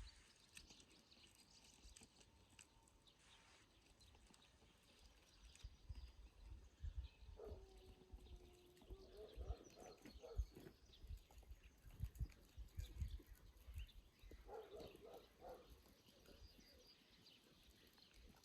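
Faint outdoor nature ambience with low rumbles, a drawn-out animal call about halfway through and a short run of quick calls a few seconds later, over faint high chirping.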